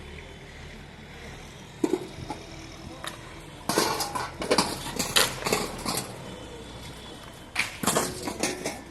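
Rubble stones clattering and knocking together as they are laid: a single knock, then two rapid runs of sharp clacks lasting about two seconds each.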